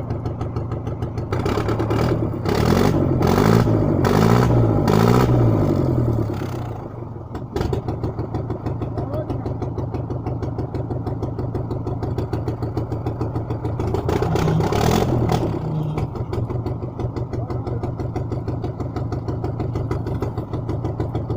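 Engine of a small tracked all-terrain vehicle idling, revved up and down several times for a few seconds, sagging briefly, then settling back to idle. It is revved once more briefly around the middle.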